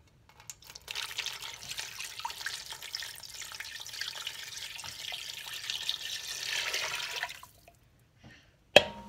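Water poured from a plastic measuring jug into a stainless steel stockpot, splashing onto a ham bone and onion pieces for about seven seconds before the stream stops. A single sharp knock follows near the end.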